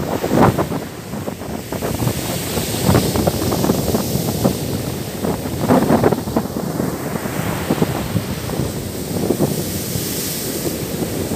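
Sea surf breaking and washing up over a sandy beach, with gusts of wind buffeting the microphone.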